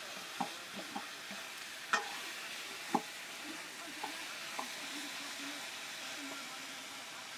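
Food sizzling as it fries in a black wok over a wood fire, a steady hiss, while a long-handled metal ladle stirs it and knocks against the pan about six times in the first five seconds, loudest about two seconds in.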